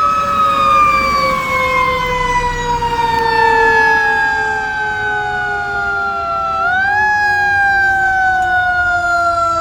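Fire apparatus sirens wailing as the units respond. The main siren's pitch winds slowly down, rises quickly about two-thirds of the way in, then falls again, with a lower second siren tone sounding beneath it.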